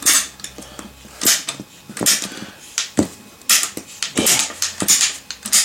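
Ratcheting PVC pipe cutter clicking as its handle is squeezed stroke by stroke through a PVC pipe, a sharp click every half second to a second.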